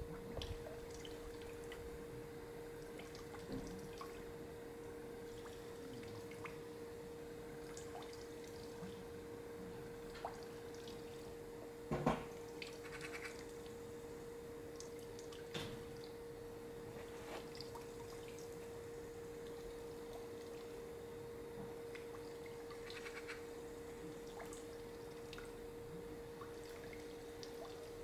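Faint background ambience: a steady low hum with scattered small ticks and clicks, and one louder knock about twelve seconds in.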